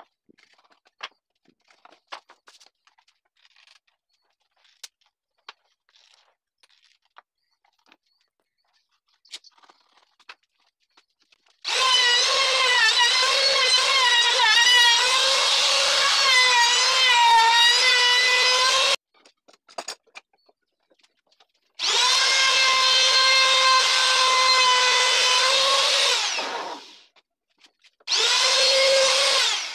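Compact trim router routing the edges of small wooden pieces in three runs: a high motor whine that wavers in pitch as the bit cuts. The second run winds down as it is switched off. Before the router starts, light clicks of wooden pieces being handled on the bench.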